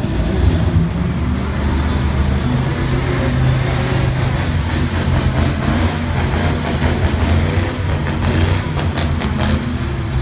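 Motorboat engines running hard as stunt boats race through the water, over the rush of their wakes and spray, with a quick run of sharp cracks near the end.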